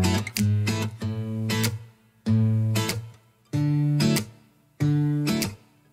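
Intro music: acoustic guitar strumming chords, a fresh chord struck about every second and a quarter and left to ring down before the next.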